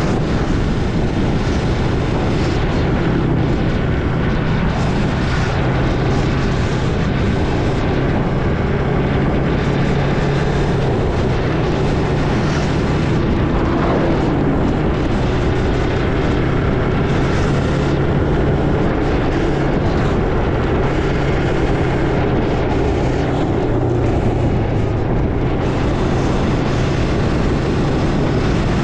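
Road noise from a moving vehicle: an engine running at a steady speed under heavy wind rushing over the microphone.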